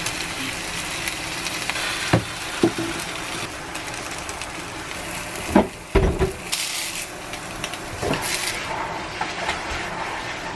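Egg-coated beef slices (yukjeon) sizzling in oil in a frying pan, with several sharp clicks of chopsticks against the pan and plate as the pieces are lifted out.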